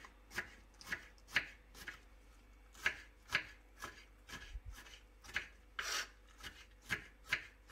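Kitchen knife slicing a long green sweet pepper into rings on a wooden cutting board: a steady run of sharp taps, about two a second.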